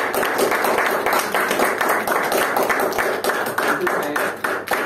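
A small group clapping hands in applause, a dense, even patter of many overlapping claps.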